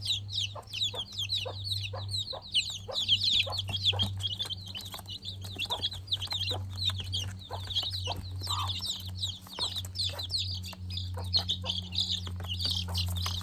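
A brood of chicks about a week old peeping: many short, high cheeps that overlap without a break. A steady low hum and scattered light ticks run underneath.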